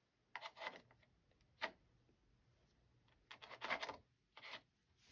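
Faint, scratchy strokes of a watercolor brush against paper and in a plastic paint palette, several short strokes with a sharper tap about a second and a half in.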